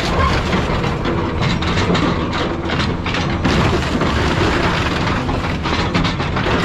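Excavator's car-dismantling claw tearing into a scrapped car: sheet metal crunching and cracking in sharp, irregular snaps over the steady running of the excavator's engine.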